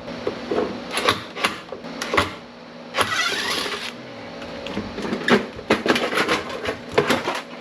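Metal clanking, knocking and scraping as a high-pressure sodium light fixture's metal ballast housing is worked open with a flathead screwdriver, with a short squeal of metal about three seconds in.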